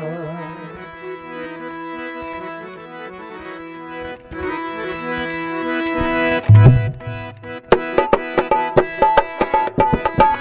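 Instrumental break in a devotional bhajan: a harmonium plays sustained melody notes, and about six seconds in a hand drum joins with a quick rhythm of sharp strokes and deep bass thumps.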